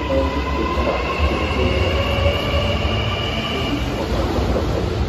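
Kintetsu 80000 series 'Hinotori' limited express electric train pulling out and moving past: a low running rumble with high, steady whining tones over it that fade out about four seconds in.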